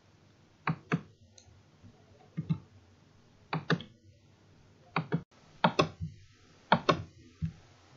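A dozen or so sharp clicks, many in quick pairs, spaced unevenly, like the clicks of a computer mouse or similar small device.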